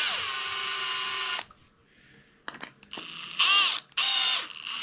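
Milwaukee Fuel cordless drill driving a wood screw through a cedar board: the motor whines, dropping in pitch as the screw bites, and stops about a second and a half in. After a pause come short trigger bursts that rise and fall in pitch, then another steady run near the end.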